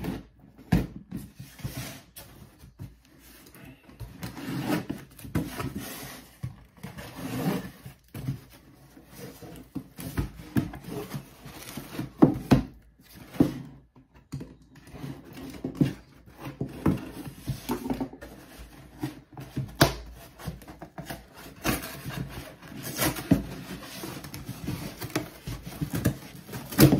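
Cardboard shipping box being opened by hand: irregular scraping, rubbing and tearing of the tape and cardboard, with scattered knocks and clicks as the box is handled on the table.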